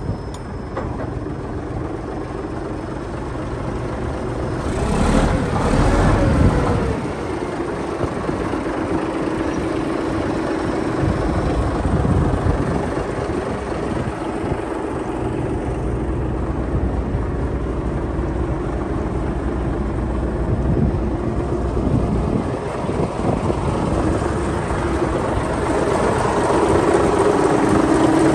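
Caterpillar D8K bulldozer's diesel engine running steadily, with a louder surge about five seconds in.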